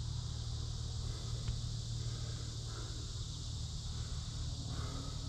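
Steady high-pitched buzzing of a summer insect chorus, with a steady low hum beneath.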